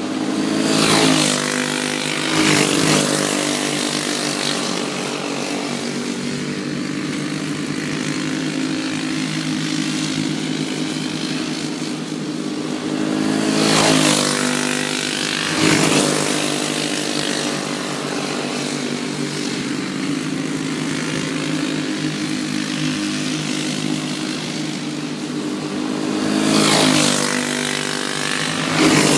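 Racing karts' small single-cylinder engines droning as the karts lap a short oval. Three times, two karts pass close, about two seconds apart, and each pass rises and then drops in pitch.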